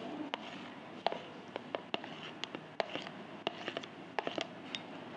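A spoon scraping and clicking against a plate as chopped cucumber is pushed off it into a bowl of whisked curd, with irregular light clicks two or three times a second.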